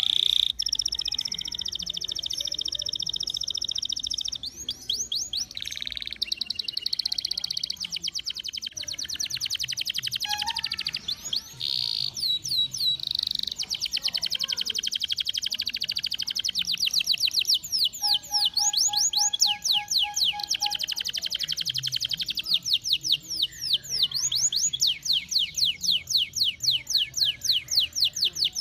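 Domestic canary singing a long, unbroken song of high, fast trills and rolls, the notes repeated very rapidly. Near the end it settles into a steadier run of sweeping notes, about five a second.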